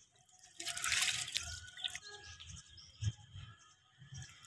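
Water splashing and dripping as clothes are washed by hand in a plastic tub, with a small knock about three seconds in.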